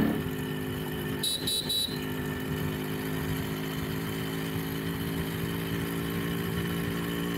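Yamaha RX100's small two-stroke single-cylinder engine running at a steady speed as the bike cruises. A brief high-pitched sound comes about a second and a half in.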